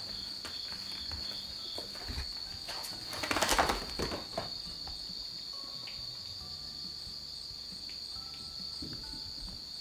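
A steady high-pitched trill like crickets. About three and a half seconds in, a brief, louder burst of rustling and scuffling as the cats tussle on the tatami mat.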